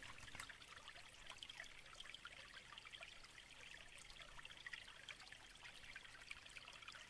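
Faint babbling stream: a steady, low trickle of water over stones with many small splashy crackles.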